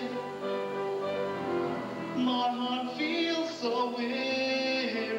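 Male voice singing a slow ballad into a handheld microphone, holding long, drawn-out notes between lines.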